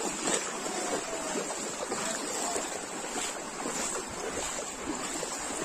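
Steady outdoor noise, like wind on the microphone, with a thin high hiss and faint, distant voices of people talking.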